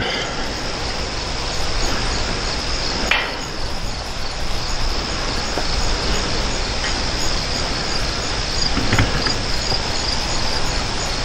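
Crickets chirping in a steady, high, pulsing trill throughout, with a few faint clicks of wire mesh being bent by hand.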